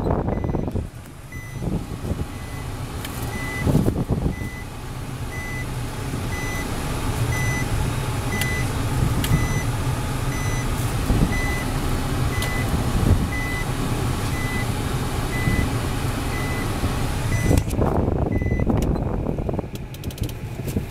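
2005 Nissan Bluebird Sylphy's in-cabin reverse warning beeper, sounding a short, even beep at a steady pace of about three beeps every two seconds while the car is in reverse, over the low rumble of the engine and tyres. The beeping starts about a second in and stops near the end, as the car comes out of reverse.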